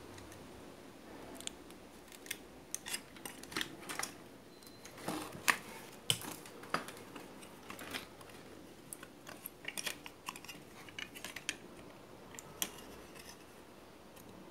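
Irregular light clicks and taps, several a second at times, from handling a CRT TV's circuit board around its flyback transformer. The sharpest click comes about five and a half seconds in.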